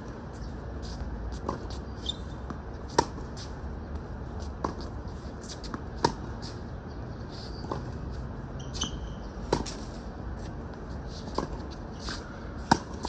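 Tennis ball hit back and forth in a baseline rally on a hard court: a sharp racquet strike about every one and a half seconds, the louder strikes alternating with fainter ones from the far end, and softer ball bounces between them.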